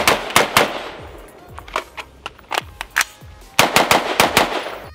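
Radical Firearms AR-15 rifle fired rapidly in semi-automatic, shots coming in quick strings: a burst at the start, a few scattered shots, then another fast string about three and a half seconds in. Background music plays under the shots.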